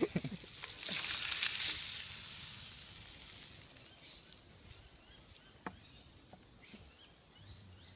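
Pan of fish fillets frying in butter and garlic: a loud burst of sizzling about a second in that dies away over the next few seconds to a faint hiss. A single sharp click comes near the middle.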